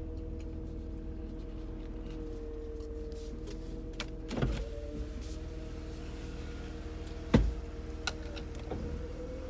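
Truck engine running with a steady hum, heard from inside the cab as the truck reverses out of a garage. Two thumps break it, one about halfway through and a louder, sharper one near the three-quarter mark.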